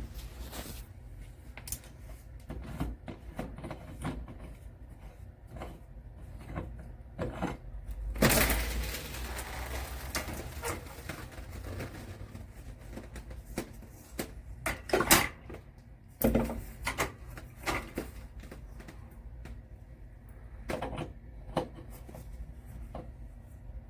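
Scattered clicks, knocks and scrapes of a shower head being handled and screwed onto the shower arm, with a short hissing burst about eight seconds in and a few louder knocks about halfway through.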